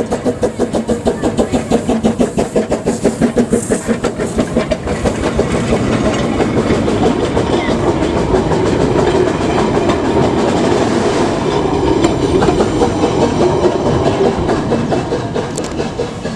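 Small narrow-gauge locomotive working, with quick, even exhaust beats for about the first five seconds, then giving way to a steadier rushing noise that fades near the end.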